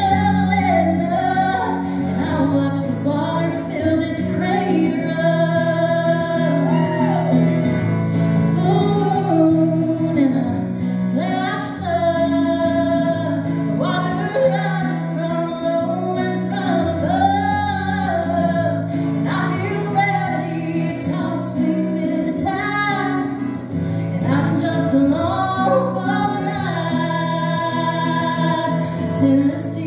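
A woman singing a song to her own amplified guitar accompaniment, with the voice rising and falling in phrases over steady strummed chords.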